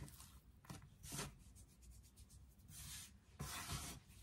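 Faint rubbing and brushing of hands handling soft yeast-dough strands on a floured wooden board, in a few short soft swishes.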